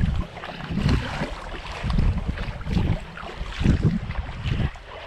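Wind buffeting the microphone in repeated low gusts about once a second, over a steady wash of sea water around a kayak.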